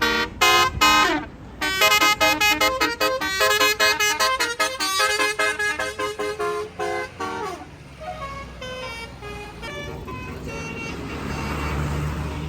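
Basuri telolet horn on a bus playing a fast tune of short, rapidly changing notes, thinning to scattered toots about seven or eight seconds in. Near the end the bus engine's low rumble grows louder.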